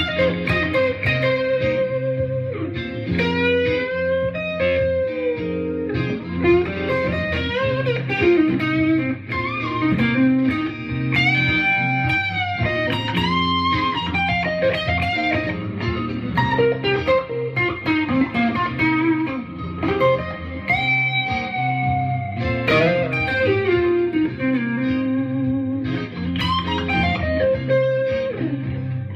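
Electric guitar playing a blues lead over a C minor blues chord loop, with string bends and wide vibrato on held notes.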